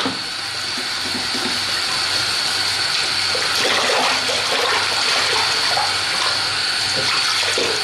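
Steady stream of tap water running into a red plastic bowl and splashing inside it as the bowl is rinsed and rubbed with a sponge.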